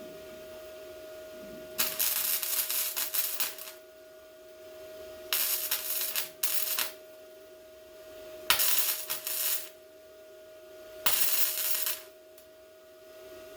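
Welder laying short stitch welds on sheet-metal body panels: four separate bursts of crackling, each about one to two seconds long, with pauses between them. A steady hum runs underneath.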